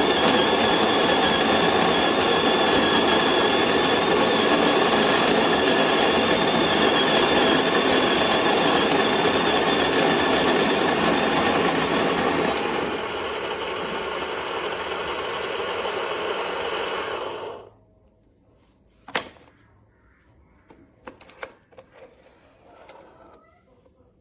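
Wilfa Svart Aroma 130-watt conical burr coffee grinder running and grinding beans with a steady motor whir. It gets quieter about two-thirds of the way in, then cuts off suddenly after about seventeen seconds, followed by a sharp click and a few light knocks.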